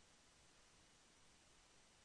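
Near silence: a faint, steady hiss of recording noise.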